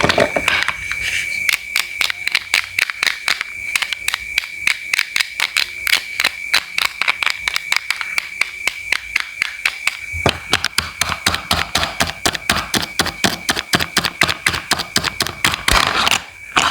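Knife chopping rapidly on a cutting board, about four or five even strokes a second, with a steady high tone underneath. The strokes sound heavier with more thud after about ten seconds.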